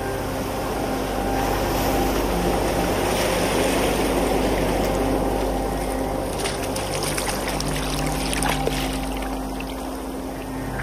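Tidepool water washing and sloshing among seaweed-covered rocks, layered over a sustained drone of held musical tones. From about six seconds in, a spell of fine crackling and fizzing joins the water, dying away by about nine seconds.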